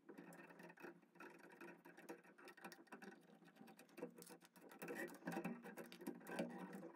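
Faint scattered clicking and scraping of a small screwdriver working the terminal screws of an old porcelain lampholder, with the wires being worked loose from the terminals.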